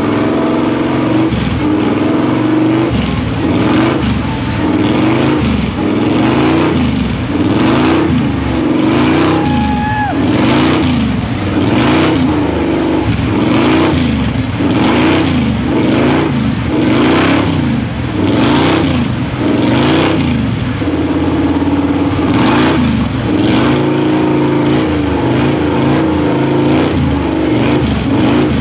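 Lifted Chevy S-10 pickup on tractor tires churning through a mud hole, its engine revving up and down over and over, about once a second, as the tires spin and throw mud and water.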